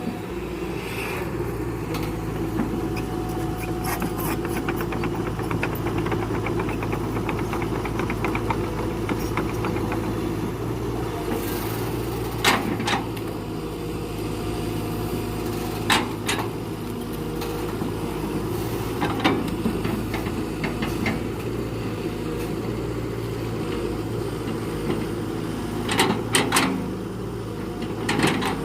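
Excavator's diesel engine running steadily, with a few sharp knocks over it.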